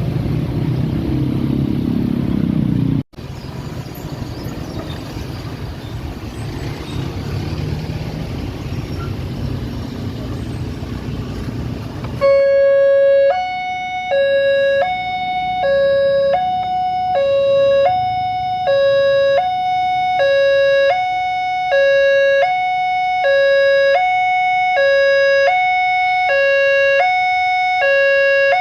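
Railway level-crossing warning siren starts abruptly about twelve seconds in and sounds a clean two-tone alternation, low and high pitches swapping about every three-quarters of a second. Before it there is a steady rushing noise, with a brief cut about three seconds in.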